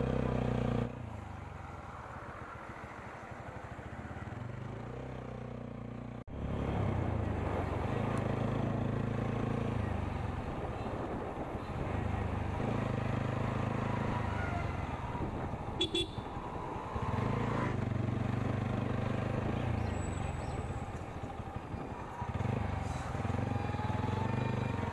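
Motorcycle engine running while riding along a road. Its pitch and level hold for a few seconds at a time and then shift as the throttle changes.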